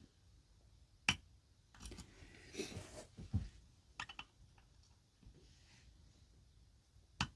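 Small metallic clicks of a lock pick and tension wrench working the pins of a pin-tumbler challenge lock: one sharp click about a second in, a cluster of light clicks and handling rustle around two to three seconds, another click around four seconds and a last sharp click near the end.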